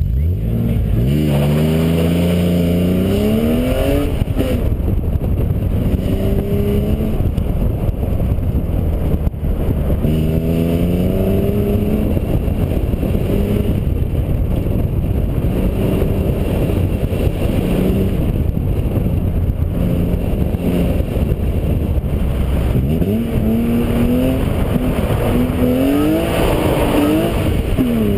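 Car engine heard from inside the cabin on an autocross run: it revs up hard from the launch about a second in, its pitch climbing and then dropping back as it shifts, then rises and falls again and again with the throttle through the cones, over steady road and wind noise.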